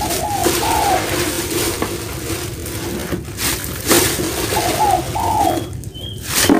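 A dove cooing, one phrase of arched coos near the start and another about five seconds in, over the rustle and knocks of raw chicken pieces being handled in a plastic-lined bucket and tub.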